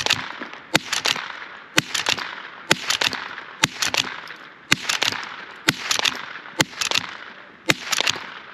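Rossi Rio Bravo .22 lever-action rifle fired repeatedly with .22 Long Rifle rounds, about one shot a second, nine in all. Each shot is followed by the quick metallic clack of the lever being worked to eject and chamber the next round.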